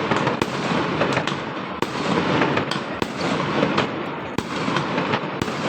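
Fireworks going off all around: a dense, continuous crackle with sharp bangs about every half second to second.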